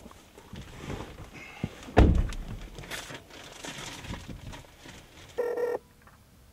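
Someone getting into a car: a plastic bag of grape clusters rustles, then a single heavy thunk about two seconds in, typical of the car door shutting. A short steady electronic tone sounds near the end.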